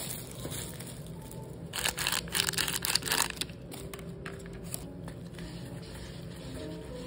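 Crinkling and crackling of a plastic food packet being handled, a loud rustling stretch of about a second and a half starting about two seconds in, followed by a few light ticks.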